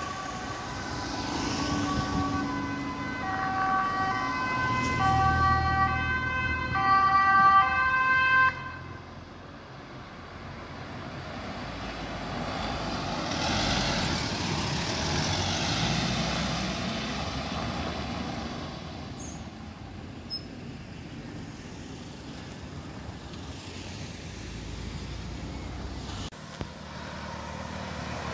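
Emergency vehicle's two-tone siren alternating between a high and a low note, growing louder and then cutting off abruptly about eight seconds in. A few seconds later a police van drives past close by, followed by steady traffic noise.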